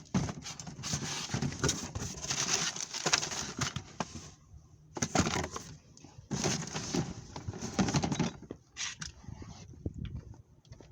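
Rummaging through stored belongings: items shifted and handled, giving a rustling, clattering noise with many small knocks, in three stretches that thin out near the end.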